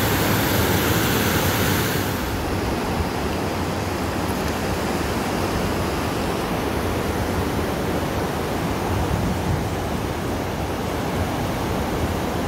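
River water rushing over a rocky cascade and low weir: a steady rush of white water that turns a little duller after about two seconds.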